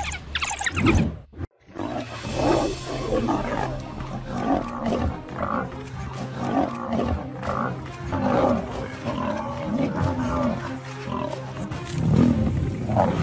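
Lion growling and roaring in a fight, in repeated rough calls, over a steady background music track. The sound cuts out briefly about a second and a half in.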